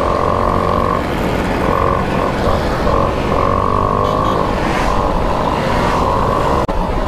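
Two-stroke moped engines running on the move, heard from the rider's own moped: a high engine whine that breaks off and comes back several times in the first three seconds as the throttle is eased and opened, over a low rumble of wind on the microphone.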